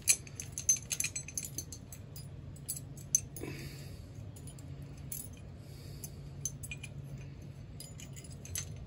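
Small metal brake parts of a lawn tractor's disc brake clinking and clicking as they are taken off and handled. The clicks come thickest in the first second or so, then sparse and scattered, over a low steady hum.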